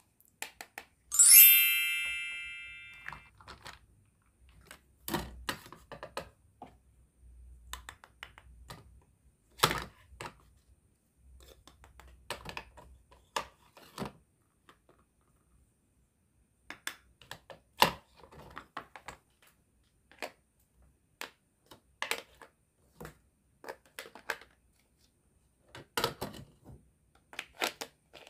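A bright bell-like ding about a second in that rings out over a couple of seconds. After it come scattered light clicks and knocks of plastic and wooden toy food and toy utensils being handled, cut apart and set down.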